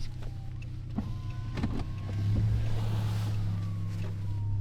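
Steady low hum of a car's idling engine heard from inside the cabin, with a few sharp clicks and a rush of hissy noise a little past halfway through.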